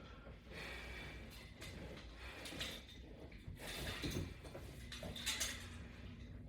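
Metal strap hardware of a latch-bar exercise rig clinking and rattling, with rustling, in a repeating rhythm of roughly one stroke a second as sit-up reps are done.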